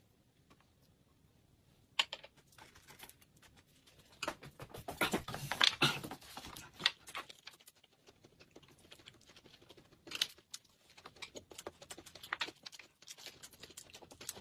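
Eating and food-handling sounds: irregular clicks, crinkling and rustling as flatbread wraps are handled and eaten. The sounds are busiest about four to seven seconds in, after two near-silent seconds at the start.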